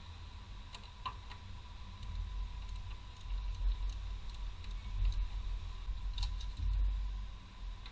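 Scattered light clicks and taps of hands working plastic parts and connectors around a BMW M54 engine's intake manifold, over a low rumble that grows louder after about three seconds and a faint steady high whine.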